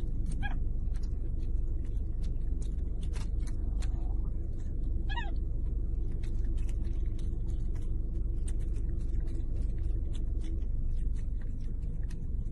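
A monkey eating, with frequent small smacking clicks and two short squeaking calls, one about half a second in and one about five seconds in, over a steady low rumble.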